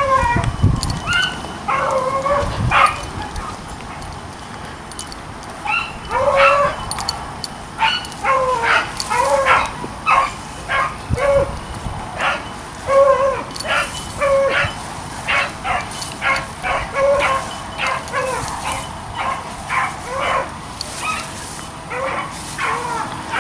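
A pack of beagles baying in full chase, short overlapping calls that come thick and fast from about six seconds in, the sign that the hounds are running hot on the track.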